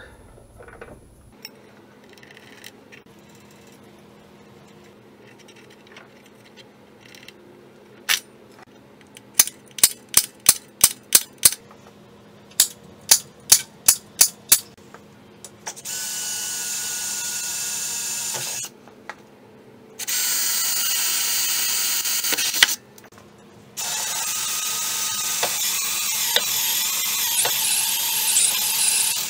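A run of sharp clicks, then a cordless DeWalt drill boring into steel of the front frame in three steady runs of a few seconds each, the last the longest.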